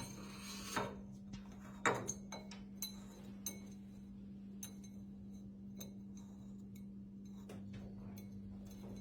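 A few sparse light clicks and taps, most of them in the first four seconds, over a steady low hum.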